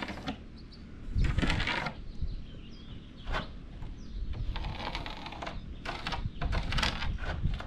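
Irregular bursts of scraping and rustling from work being handled at close range, with a few faint bird chirps behind.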